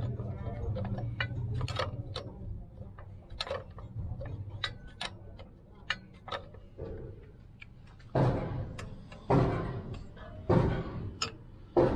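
Light metallic clicks and taps from a bolt being worked by hand into a water pump's metal casing. Near the end come four loud, harsh strokes about a second apart as a spanner works the pump's bolts.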